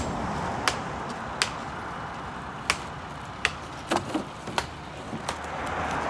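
Irregular sharp clicks and knocks, about eight over five seconds, over the low steady running of a concrete mixer truck.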